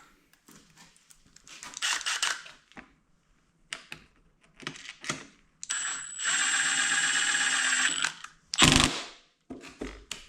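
A cordless drill/driver runs steadily for about two seconds, plausibly driving in the bolts of a dirt bike's number plate. Before it there is light clicking and handling of parts, and after it comes a loud knock.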